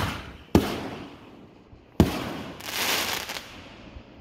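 Fireworks going off: three sharp bangs, at the start, about half a second in and about two seconds in, each echoing away, followed by a rushing hiss lasting under a second.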